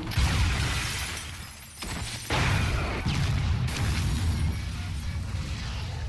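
Two explosions from grenade-launcher rounds hitting SUVs: one blast right at the start that fades over about two seconds, then a second, louder blast a little over two seconds in, followed by the rumble of the fire.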